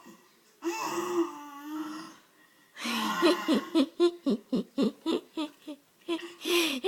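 A 10-month-old baby vocalizing: one drawn-out voiced sound, then a run of short staccato laughs, about five a second, then another brief vocal sound near the end.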